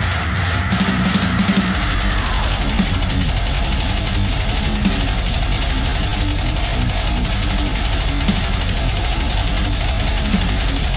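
Music track with guitar and drums, laid over the ride in place of the bike's own sound.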